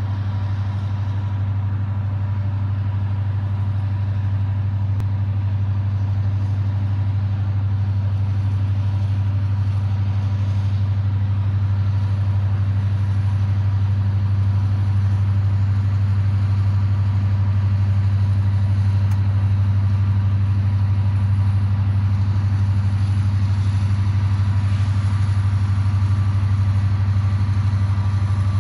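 Diesel locomotive engine running with a steady low drone, growing slightly louder as the locomotive approaches at slow speed.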